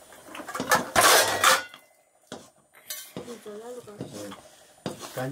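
A metal spoon scraping and knocking against a cooking pot while thick flour porridge is stirred, loudest in a run of scrapes about a second in. A voice is heard faintly in the second half.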